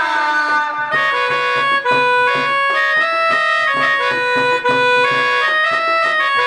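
Instrumental interlude between sung lines: a reed or keyboard instrument plays a stepping melody of held notes over a steady percussion beat.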